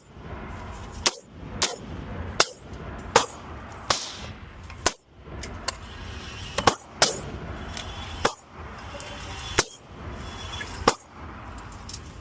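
AR-10-style rifle fired as rapid double taps: about a dozen sharp shots, several in quick pairs, spaced roughly a second apart.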